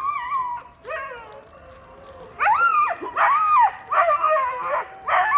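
Several dogs howling together, their high, wavering calls overlapping. About halfway through comes a run of short rising-and-falling howls over a longer held one.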